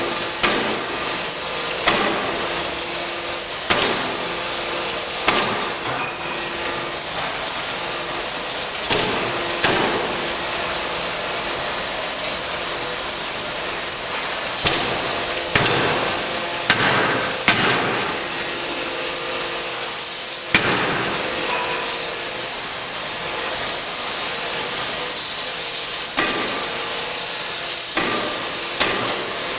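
3-ton (75 kJ) hydraulic closed die forging hammer striking the workpiece. At first the blows come about every second and a half to two seconds, then in irregular pairs and clusters, over a steady hiss.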